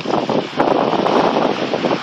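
Wind buffeting the microphone in gusts: a loud rushing that swells about half a second in.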